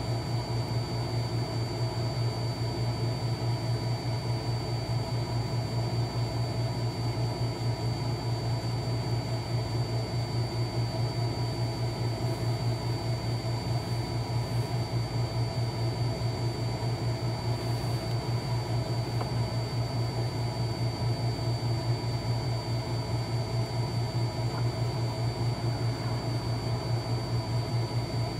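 A steady machine hum, strong and low with a rapid flutter, with a thin high-pitched whine over it that does not change.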